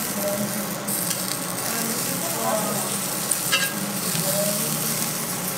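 Lamb fat sizzling as it is rubbed with tongs across a hot cast-iron jingisukan dome grill over charcoal, greasing the grill. A couple of light clicks come about three and a half seconds in.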